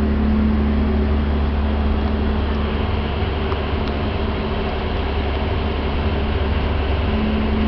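Passenger ferry's engines running steadily under way: a constant low drone with a steady hum on top.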